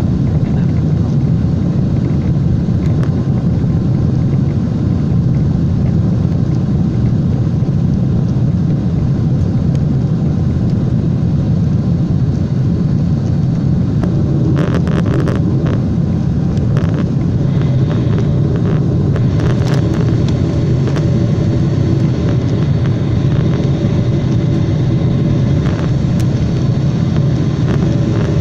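Steady low rumble of a Boeing 747's engines and airflow heard from inside the passenger cabin in flight. Faint steady whining tones join about halfway through, with a few brief clicks or rattles around the middle.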